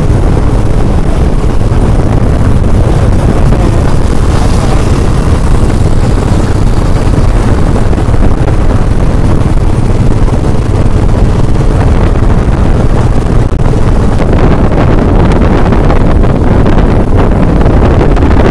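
Heavy wind buffeting on the microphone over a motorcycle running at road speed, a loud, steady rumble with no change throughout.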